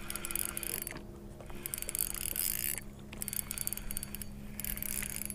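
Spinning reel being cranked to bring in a just-hooked fish: the reel's gears give a fast whirring click in four spells of about a second each, with short pauses between.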